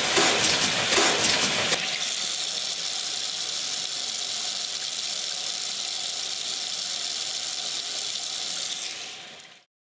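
Water running from a plastic tap, splashing hard for the first couple of seconds, then flowing steadily before fading out near the end.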